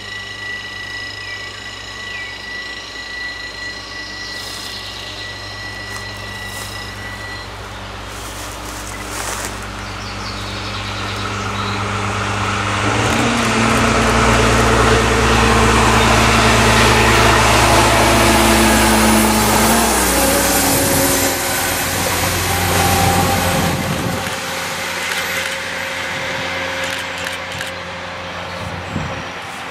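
Two-car diesel railcar passing: its engine and wheels grow louder as it approaches, loudest about halfway through, then the engine note drops and fades as it moves away.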